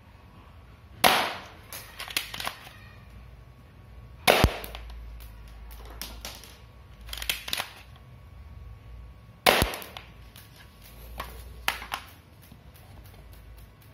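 Toy Desert Eagle pistol fired three times at a cardboard box, each shot a sharp crack. Softer clicks and rattles of handling come between the shots.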